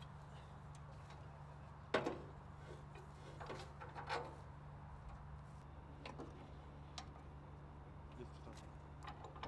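Clicks and knocks of metal fittings as a portable satellite dish and its tripod mount are assembled and aimed by hand: one sharp knock about two seconds in, a cluster of knocks around four seconds, then a few lighter clicks. A steady low hum runs underneath.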